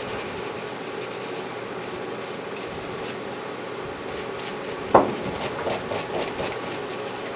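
Nylon bristle brush scrubbing the steel bolt of a Sub2000 carbine in quick, repeated scratchy strokes, with one sharp knock about five seconds in.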